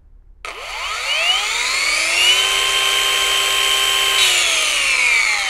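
Boda brushless twin-blade wall chaser running with no load: its whine starts about half a second in and rises slowly for about two seconds as the soft starter brings the motor up to speed, holds steady, then falls away as the motor winds down near the end.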